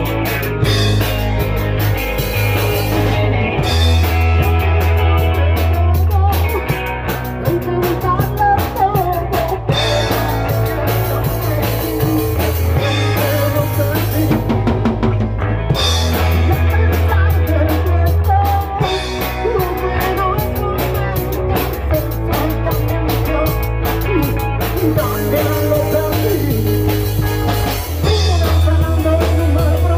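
Rock band playing a song: drum kit hits over sustained bass notes that change every few seconds, with guitar.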